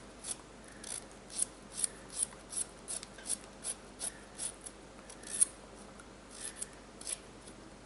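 Small kitchen knife slicing through a raw carrot held in the hand, each cut a short crisp snap, about two or three a second, with a brief pause about five and a half seconds in.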